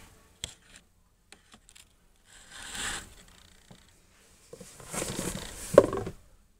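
Cardboard gift box and its paper packing being handled: a few light taps, then a short rustle, then a louder rustling and scraping of paper with a sharper bump near the end as a glass snow globe is lifted out of the box.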